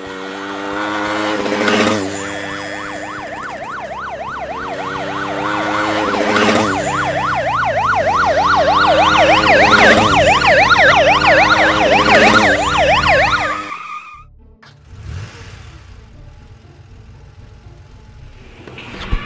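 Police car siren in a fast yelp, its pitch sweeping rapidly up and down over a steady drone. It stops about fourteen seconds in, leaving only quieter background sound.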